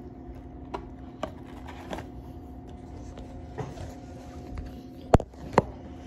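Chewing on a sandwich over a steady low hum, with a few faint mouth clicks, then two sharp knocks about half a second apart near the end as the phone is handled and set back down.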